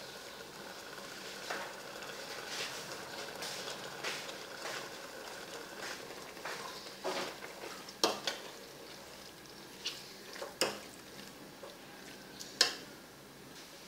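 Metal ladle stirring beef frying in a spice paste in a metal pot, scraping the pot over a steady sizzle. In the second half the ladle clanks sharply against the pot a few times, the loudest clank near the end.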